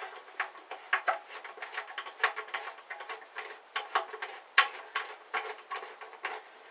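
Irregular light clicks and knocks, a few a second, from hands working on the metal parts of a 9-inch Mastercraft bandsaw at its lower door.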